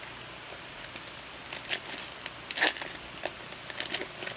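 Trading-card pack wrapper and cards being handled, a run of short crinkles and rustles that starts about a second and a half in, loudest near the middle.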